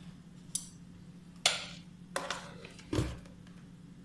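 A plastic food-storage lid being handled and pressed onto a plastic container. There is a faint click, then three short plastic clatters and scrapes about a second apart, the last with a dull knock.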